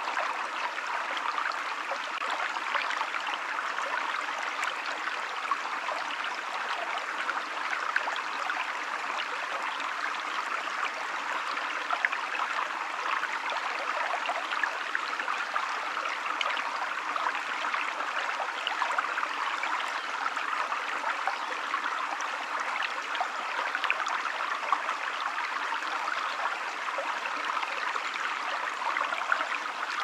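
Shallow woodland stream flowing steadily: a constant rush of running water with fine trickling.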